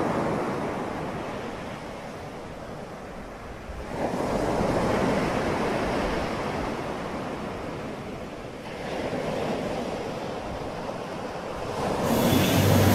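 Rushing noise like surf that swells and fades in slow surges, peaking roughly every four to five seconds. A louder, different sound with a low steady hum cuts in near the end.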